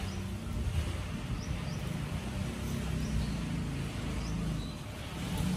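Short bird chirps every second or so over a steady low rumble like a distant engine.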